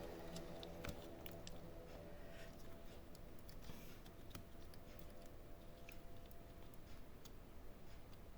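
Faint, scattered clicks and taps of small laptop parts being handled on a workbench. A steady hum fades out over the first few seconds.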